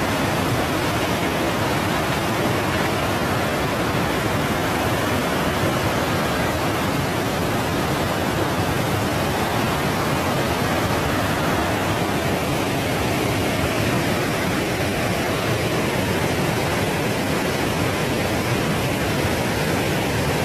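Muddy flash-flood water rushing down a dirt channel: a steady, unbroken roar of churning water.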